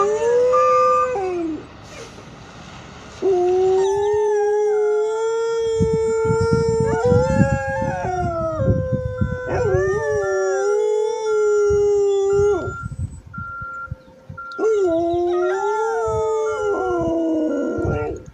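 A pack of canines howling in long drawn-out calls that rise and fall, several voices overlapping at times. A truck's reversing alarm beeps steadily over them, about one and a half beeps a second, from about halfway through.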